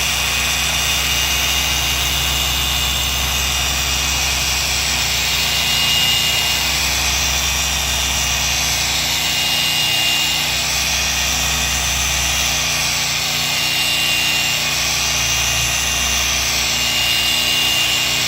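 Power sander running a 3000-grit Trizact abrasive disc, sanding oxidation off a finish: a steady machine whine that swells slightly several times as it is worked over the surface.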